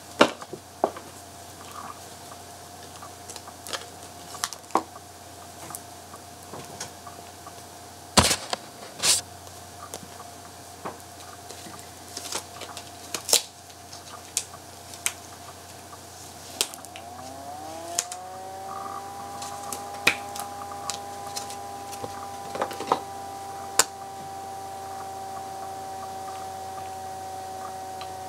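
Scattered light clicks, taps and knocks of hands handling a reborn doll and its baby clothes, the loudest two a little past a third of the way in. Under them a steady hum; about two-thirds in it slides up in pitch and settles into a higher, fuller hum.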